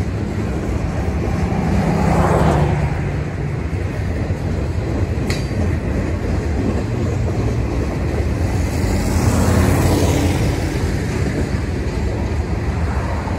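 Boxcars and tank cars of a long mixed freight train rolling past: a steady rumble of steel wheels on the rails, swelling twice, about two seconds in and again near ten seconds, with a brief sharp click about five seconds in.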